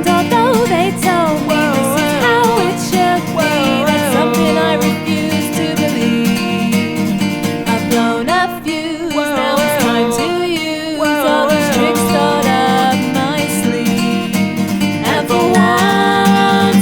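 Music: a song with acoustic guitar, a wavering lead melody over steady chords, with no words made out.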